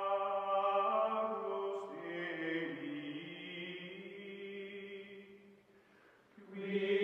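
Background music of long held chords that change once about two seconds in, fade almost away around six seconds in, then swell back near the end.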